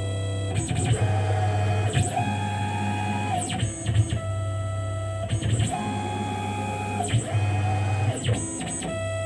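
Tormach CNC mill's axis drive motors whining as the machine moves the touch probe through an automatic probing routine. Steady tones last a second or so each, change pitch from one move to the next, and glide briefly at each start and stop as the axes speed up and slow down.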